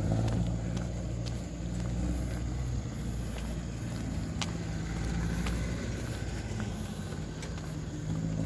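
A motor vehicle engine running steadily at low revs, a constant low hum with a few faint clicks over it.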